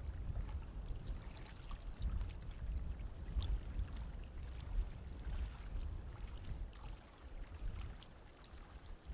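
Calm seawater lapping and trickling among rocks on a shallow reef-flat shore, with small scattered splashes over a low, fluctuating wind rumble on the microphone.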